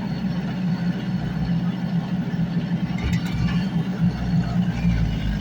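Heavy diesel engine running steadily, from the excavator or the stuck truck working in the mud.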